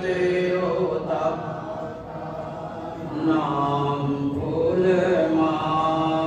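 Sikh hymns (Gurbani) chanted in a slow melody, the voice holding long drawn-out notes. It dips about two seconds in, then swells again.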